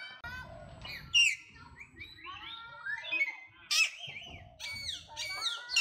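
Monkeys squealing and chirping, several high calls overlapping, many of them sliding down in pitch, with sharper, louder cries about a second in, just before four seconds and near the end.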